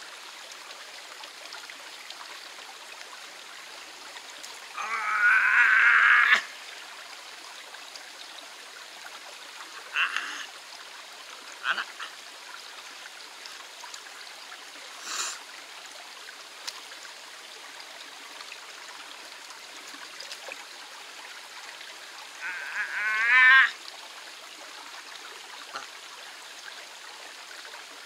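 Shallow mountain stream running steadily over rocks. Twice, about 5 s in and again near the end, comes a loud slurp of somen noodles lasting about a second and a half, with a few short clicks of chopsticks against a metal cup in between.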